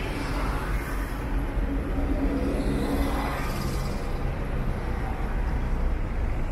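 Street traffic: cars driving slowly past at close range, a steady rumble, with one nearby car's engine note standing out briefly a couple of seconds in.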